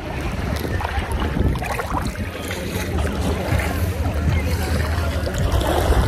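Sea water lapping and splashing around swimmers, with scattered short splashes over a steady low rumble.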